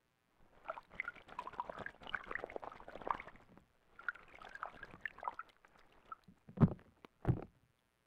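Ural owl bathing in a shallow pool, its wings and body churning the water in two bouts of splashing, then two loud thuds near the end.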